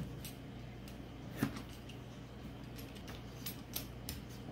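A vegetable peeler scraping the skin off a squash in short strokes, with a few light clicks and scrapes against a plastic cutting board, the clearest about a second and a half in and several more near the end. A steady low hum runs underneath.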